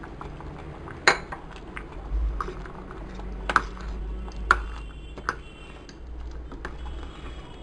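Steel spoon clinking and scraping against the metal pressure-cooker pot as coconut-cumin paste is added and stirred into thick curry, with a few sharp clinks, the loudest about a second in and again around three and a half and four and a half seconds.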